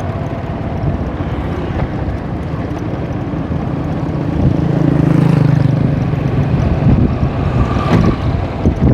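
An engine running steadily, with a low rumble that swells for a couple of seconds around the middle and then eases back.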